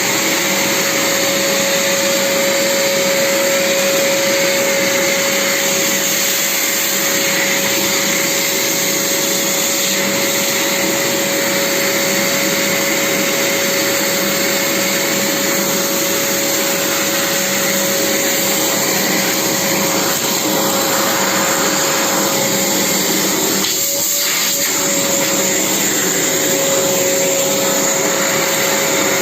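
Vacuum cleaner running steadily, a constant rushing noise with a steady motor whine; the whine briefly wavers once, about twenty-four seconds in.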